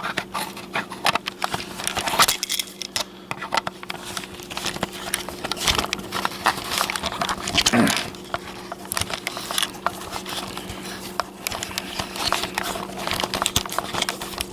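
Handling noise from a camera being fitted and adjusted on a mini tripod: irregular clicks, taps and rattles, over a steady low hum.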